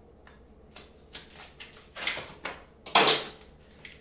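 Handling noises of brake pads and tools being worked at a motorcycle brake caliper: scattered light clicks and short scraping rattles, the loudest about three seconds in.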